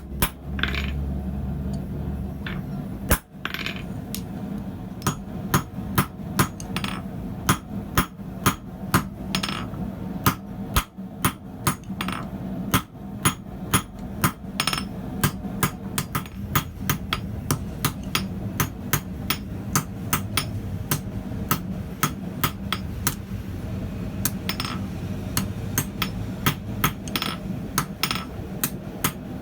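Blacksmith's hammer striking metal on an anvil in a steady run of blows, about two a second, some ringing briefly, over a steady low hum.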